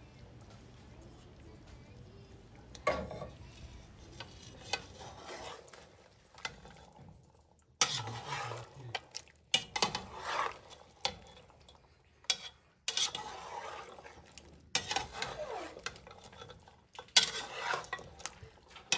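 Metal spoon stirring chickpeas and beef curry in a metal pot, clinking and scraping against the pot in irregular strokes that start about three seconds in.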